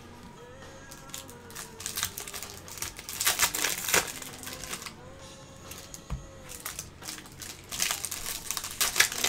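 Plastic and foil card-pack wrappers crinkling as they are handled, in two spells of rustling, the second near the end.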